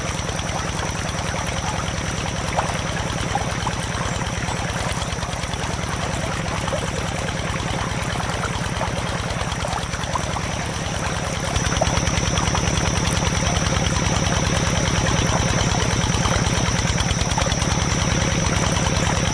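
Mini diesel engine running steadily, driving a belt-driven water pump, with a fast, even chugging and a thin high whine. It gets louder a little past halfway.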